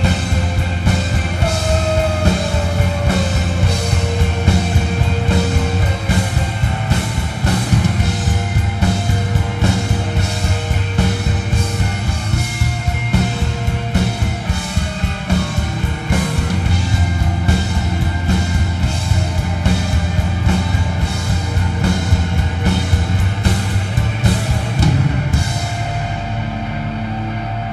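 A live psychedelic rock band playing loud, with a driving drum kit and cymbals over heavy bass and guitar. About 26 seconds in the drums and cymbals stop, leaving only sustained held notes ringing on.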